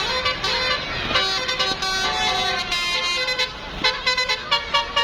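Bus telolet horn, a Basuri multi-tone horn, tooting a melody of held notes that step between several pitches. Over roughly the last second the notes turn short and clipped.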